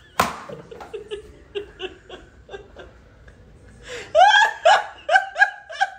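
A sharp slap just after the start, a slipper striking the tile floor, followed by laughter: soft short chuckles at first, then loud laughing in a quick run of rising bursts from about four seconds in.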